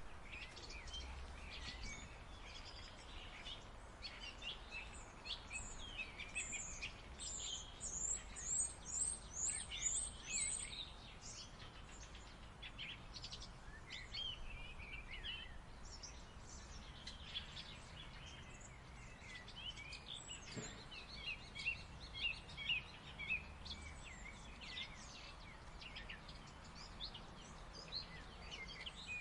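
A common starling singing: a varied string of chirps, clicks and whistles, with a quick run of high falling whistles about eight to ten seconds in, over a low steady background rumble.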